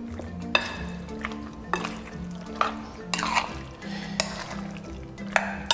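A metal spoon stirring chunks of marinated meat in a glass bowl, with wet squelching and about six sharp clinks and scrapes of the spoon against the glass, over background music.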